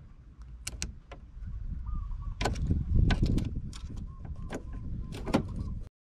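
Worn ignition lock cylinder of a 1996 Toyota Tacoma being worked loose and pulled out of the steering column with its key in it, the release pin held in by a small screwdriver: a couple of sharp clicks, then metal scraping and rattling of the cylinder and keys with several clicks, cutting off suddenly near the end.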